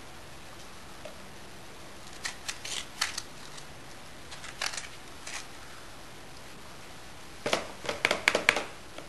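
Spoon scooping avocado flesh from the skin and knocking against a plastic bowl: short clusters of scraping clicks about two seconds in and again around five seconds, then a louder run of clicks near the end.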